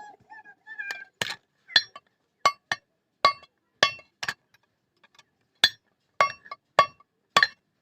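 Hand hammer striking metal on an anvil, each blow ringing, in an uneven rhythm of about one to two blows a second with a short pause midway: a blacksmith hammering out a katari blade.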